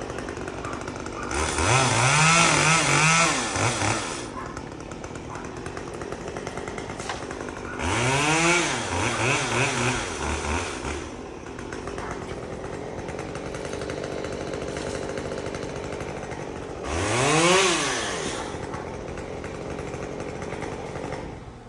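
Chainsaw running at idle and revved up three times, each time the engine pitch rising sharply and then dropping back to idle.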